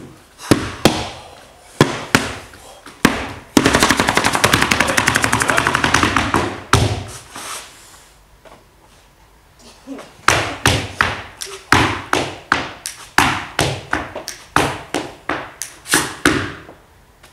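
Percussive dance steps on a wooden stage floor: scattered sharp strikes, then a fast rattling run of about three seconds, a short quiet spell, and a steady run of strikes about two a second.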